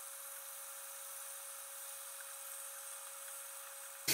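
Faint steady hiss with a thin, steady mid-pitched hum and no distinct events.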